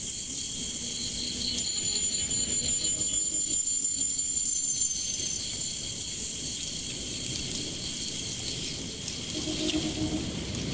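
Insects calling in steady high-pitched pulsing trills, with a thinner high whine from about a second and a half in that stops about halfway through, over a low rushing noise.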